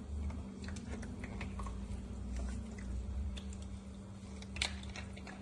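Scattered light clicks and taps from handling a humidifier's plastic water tank and cap, with a sharper click about four and a half seconds in, over a low steady hum.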